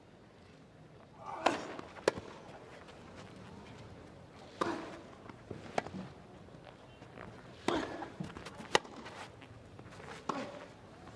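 Tennis rally on a grass court: sharp racket strikes on the ball and ball bounces sounding every second or few, over a low steady crowd hush.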